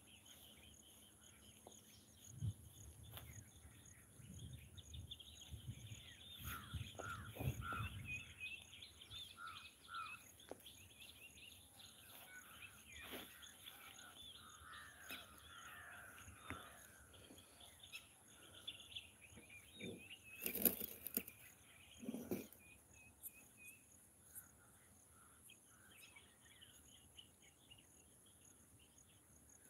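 Faint outdoor ambience of birds chirping and calling, over a steady high insect drone. A low rumble comes and goes in the first third, and two sharp knocks sound about two seconds apart after the middle.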